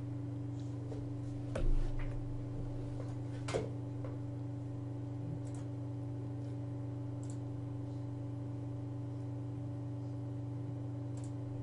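Steady low electrical hum on the microphone, with a few computer mouse clicks: a soft bump about one and a half seconds in, a sharper click about two seconds later, and faint ticks after that.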